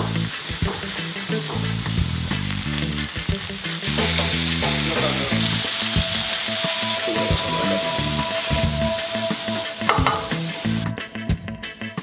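Pheasant breasts sizzling in a cast-iron frying pan over an open wood fire, loudest in the first half and fading near the end. Background music with a bass line runs underneath.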